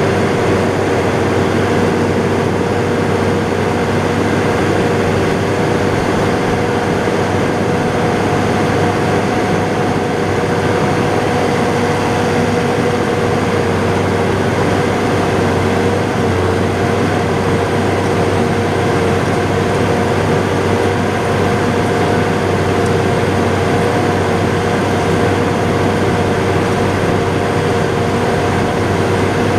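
John Deere 7800 tractor's six-cylinder turbo-diesel engine running at steady revs, heard from inside the cab: a constant drone with a steady whine over it.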